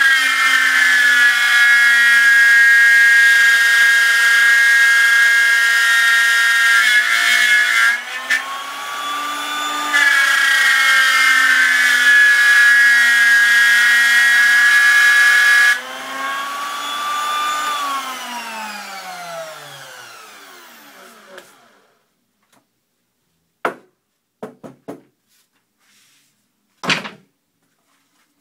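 Table-mounted Performax plunge router with a solid-carbide downcut spiral bit cutting through 3/4-inch MDF as the board is turned on a circle jig: a loud, steady whine, with a brief break partway through. About sixteen seconds in the cutting stops, and soon after the router winds down with falling pitch until it goes quiet. A few sharp knocks follow near the end.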